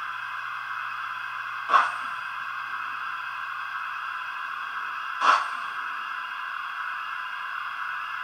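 Steam sounds from the DCC sound decoder of a Roco HO model DB class 10 steam locomotive, heard through its small speaker. There is a steady hiss, and a sharp puff comes twice, about three and a half seconds apart.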